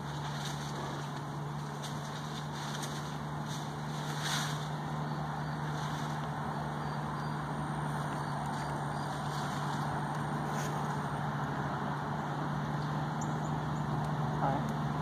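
Steady low motor hum with an even rushing noise behind it, unchanging throughout.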